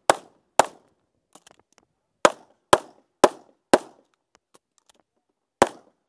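Compensated Open-division competition pistol firing rapid shots: two near the start, four evenly spaced about half a second apart, and one more near the end, each shot sharp with a short ringing tail.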